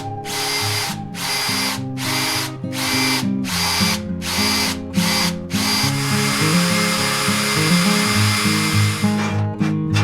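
A small power tool motor, drill-like, whining in short bursts about once a second, then running steadily for about three seconds before stopping. Acoustic guitar background music plays underneath.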